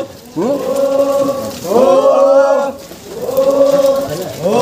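Voices chanting one short phrase over and over, three times. Each phrase slides up in pitch at the start and then holds a steady note for about a second.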